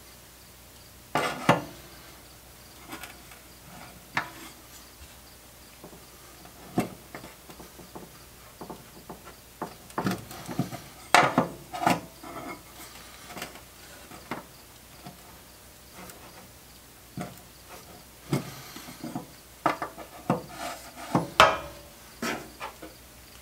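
A long metal tool knocking and scraping against the steel legs and seat pan of an upturned vintage metal stool: irregular clanks and short scrapes, with a sharp knock about a second in and busy clusters in the middle and near the end.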